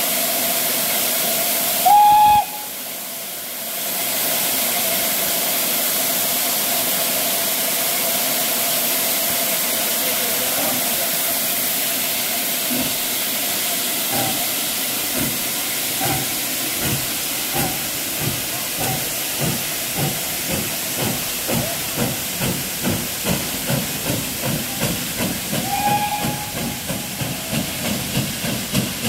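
Austerity 0-6-0 saddle-tank steam locomotive 75008 standing with steam hissing, giving a short, loud whistle about two seconds in. It then sets off: its exhaust beats start slow and quicken steadily, with another short whistle near the end.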